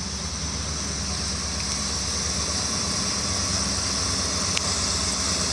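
Off-road vehicle engine running steadily at low speed, slowly growing a little louder.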